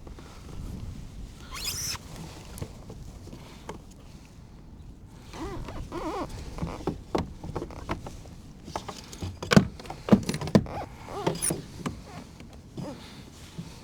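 Irregular knocks, clicks and rustles of gear being handled in a kayak while a fish scale is readied to weigh a bass. There is a zipper-like rasp about two seconds in, and the loudest knocks come about ten seconds in.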